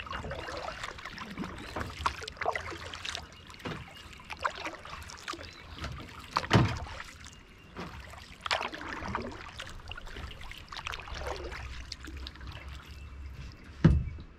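Kayak paddle dipping and splashing in calm lake water in an uneven run of strokes, with water trickling off the blade. Two sharper, louder knocks stand out, about halfway through and near the end.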